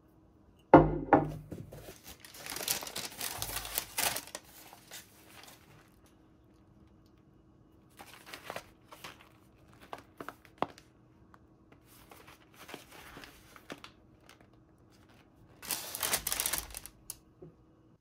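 Crinkling and rustling of something being handled, in several separate bursts, after one sharp knock about a second in.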